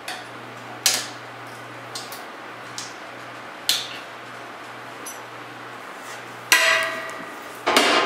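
A hammer striking a steel punch to drive out the hinge pin of a wood stove's cast-iron door: four sharp metallic knocks a few seconds apart with lighter clinks between, the last two loudest and ringing briefly. A steady low hum runs underneath.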